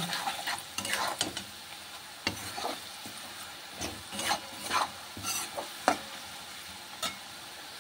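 Metal spatula scraping and stirring sliced mushrooms in hot oil in a wok, in repeated short strokes over a steady frying sizzle, as the turmeric fries with them.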